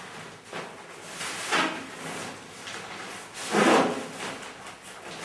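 Nylon fabric of a Sea to Summit eVent compression dry sack rustling and swishing as it is handled with towels packed inside. Two louder swishes come about a second and a half in and, loudest, about three and a half seconds in.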